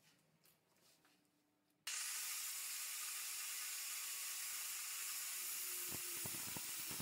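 Near silence for about two seconds, then a handheld DeWalt angle grinder with an abrasive cut-off disc starts up suddenly and cuts through steel rebar as a steady, loud hiss, with a few knocks near the end.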